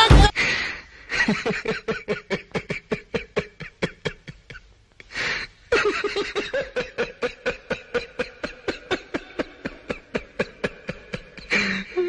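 Rhythmic laughter: a long run of quick 'ha-ha' pulses, about five a second. It breaks off briefly about four seconds in, then resumes.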